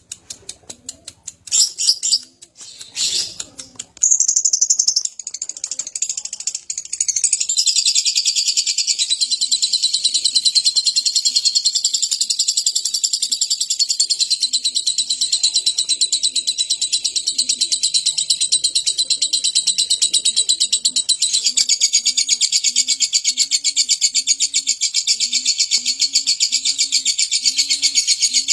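Lovebird ngekek: a few short high chirps, then from about seven seconds in one long, unbroken, rapid high-pitched chattering trill that keeps going without a pause.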